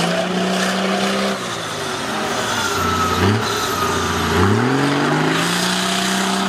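Off-road 4x4 vehicle's engine revving hard: it climbs in pitch and is held at high revs, drops back, gives a short blip, then climbs again about four and a half seconds in and stays high.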